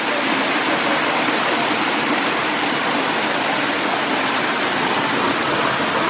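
Steady rush of a waterfall, its water splashing and cascading over boulders into a rocky stream.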